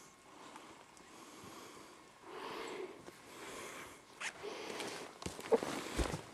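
Footsteps on a forest floor and brush rustling against the walker, with a few sharp cracks and steps in the second half.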